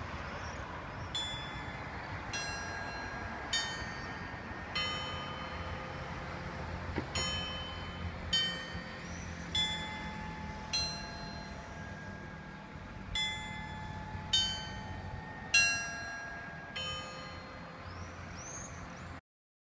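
Church tower clock bells striking the quarters: twelve strokes, about one every second, in three groups of four with a short pause between groups, each stroke left ringing. A steady low rumble runs beneath, and the sound cuts off suddenly near the end.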